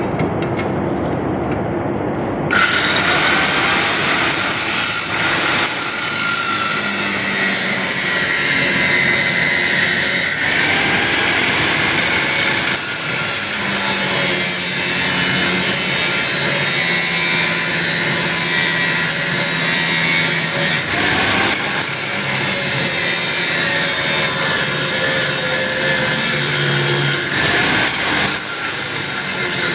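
Large nine-inch angle grinder running, then grinding metal from about two and a half seconds in with a loud, steady hiss and whine. The grinding hiss drops back briefly three times, near ten, twenty-one and twenty-eight seconds in.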